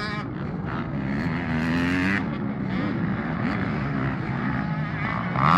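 Several motocross bikes' engines revving, their pitch rising and falling as they accelerate and shift. There is a brief, louder burst of sound near the end.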